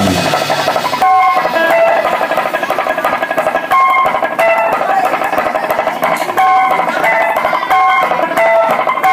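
Electric guitar playing alone: a break of short, separate picked notes hopping between a few pitches, with the drums dropped out.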